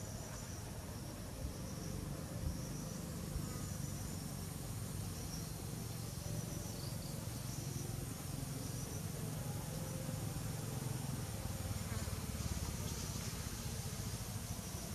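Outdoor ambience: insects trilling faintly in a high register over a steady low rumble.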